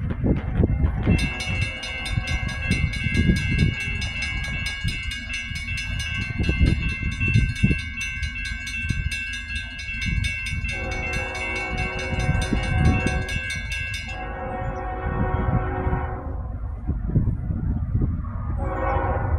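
Locomotive air horn sounding a long, steady chord for about thirteen seconds, with a second, lower blast joining near the middle and fading out a couple of seconds after the first stops, then a new blast starting near the end: a train's crossing warning as it approaches the grade crossing. A heavy low rumble runs underneath.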